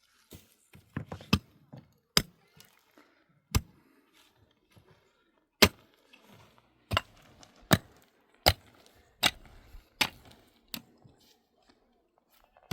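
A series of sharp, irregular knocks and clicks, about a dozen, with quieter handling noise in between.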